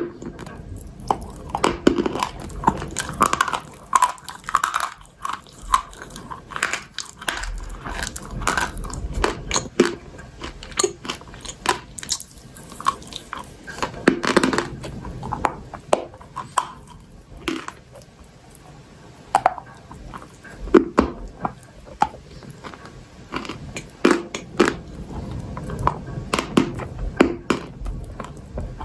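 Close-up crunching and chewing of hard, dry pieces of chalk and clay being bitten and chewed, with many sharp, irregular crunches throughout.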